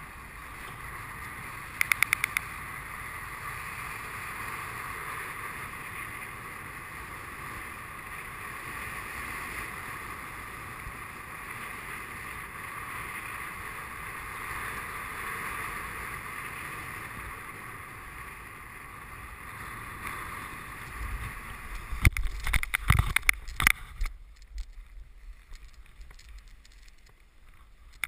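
Steady wind noise rushing over a BASE jumper's camera while he descends under an open parachute, with a quick run of clicks about two seconds in. Near the end, a cluster of heavy thuds and rustling as he touches down on the grass and the canopy comes down, then it goes much quieter.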